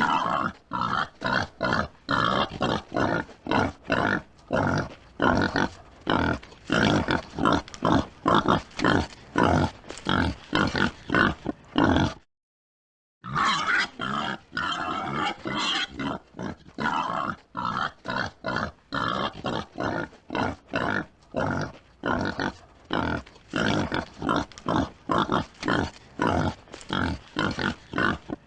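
A group of wild boars (Sus scrofa) grunting, with short calls following one another several times a second. It breaks off for about a second roughly halfway through, then the grunting resumes.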